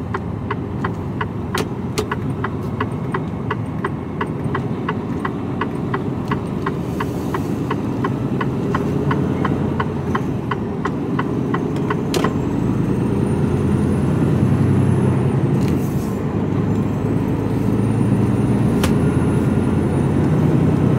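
Inside an HGV's cab: the indicator ticks steadily, about three ticks a second, over the truck's running diesel engine. About halfway through, a louder click ends the ticking as the indicator cancels. The engine then pulls harder and gets louder, with a faint high whine rising and falling.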